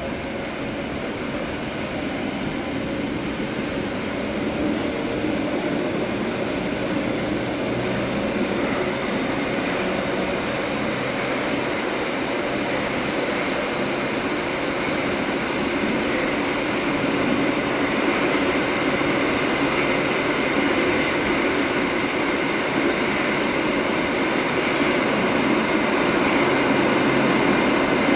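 Bucharest Metro train heard from inside the carriage as it pulls out of a station into the tunnel. The running noise and motor whine grow steadily louder as it gathers speed.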